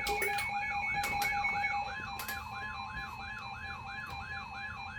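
Electronic emergency-alert tone: a warbling tone sweeping up and down about three times a second over steady high tones, the attention signal that comes before a severe thunderstorm warning is read out.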